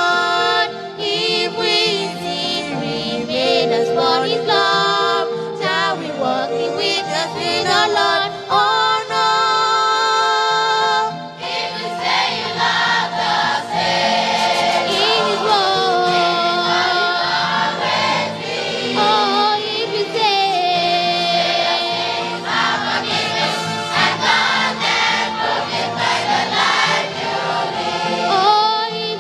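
Two girls sing a gospel hymn as a duet into microphones, then a children's choir takes up the chorus about halfway through.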